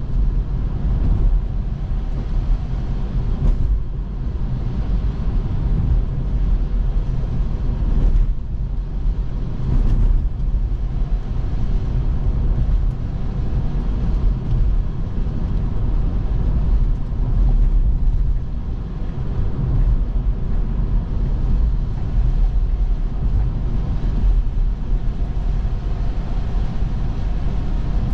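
Steady low rumble of road and tyre noise from a Tesla electric car driving on snowy roads, with no engine sound.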